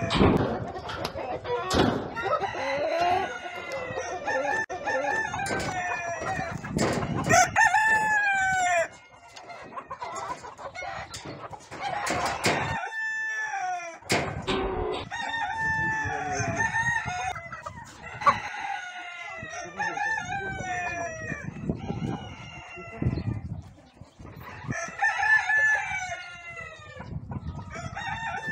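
Pavlovskaya roosters crowing again and again, the crows sometimes overlapping, with clucking between them and short bursts of wing flapping.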